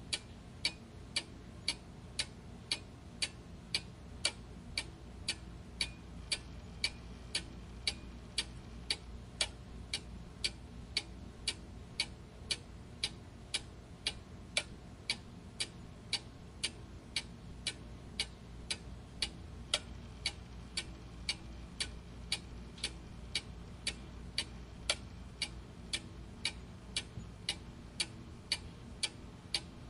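Clock ticking steadily, about two ticks a second, over faint low background noise.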